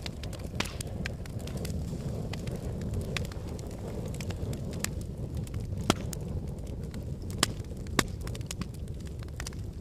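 Wood fire crackling in a fireplace: a steady low rumble of flames with scattered sharp pops. Three louder pops come about six, seven and a half and eight seconds in.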